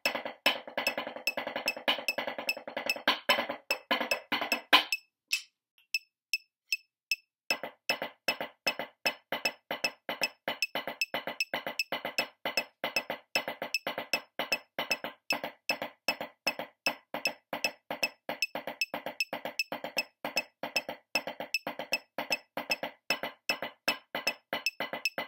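Wooden drumsticks striking a drum-corps snare practice pad: a dense, fast passage that breaks off about five seconds in, then after a pause of two or three seconds a long run of evenly spaced strokes.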